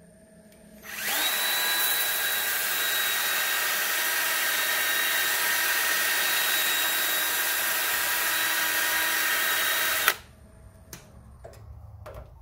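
Handheld power drill spinning a foam-backed 400-grit sanding disc against a walnut bowl turning on the lathe. It spins up with a quick rising whine about a second in, runs steadily with a whine over a hiss, and cuts off suddenly about ten seconds in.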